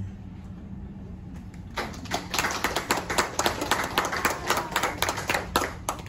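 Applause from a small group: a patter of separate hand claps that starts about two seconds in and stops just before the end.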